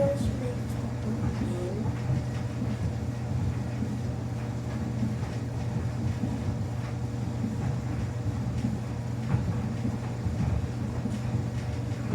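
Samsung washing machine running on a quick wash cycle: a steady low motor hum with the drum turning and a rough, uneven rumble underneath.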